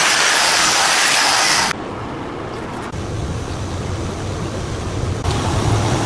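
Steady rushing hiss of abrasive work on a rusty steel cleaver, in short clips. The clips change abruptly about two seconds in and again near the end. The middle clip is quieter, with a low rumble underneath.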